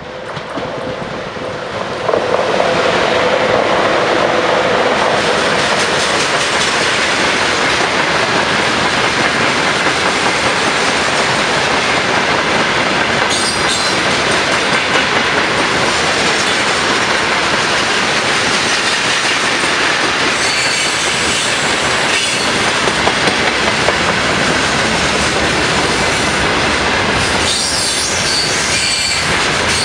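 Loaded freight train of tank cars and open wagons rolling past close by: a steady loud rumble and clatter of wheels over the rail joints, swelling as the train draws level, with brief high wheel squeals now and then, several of them near the end.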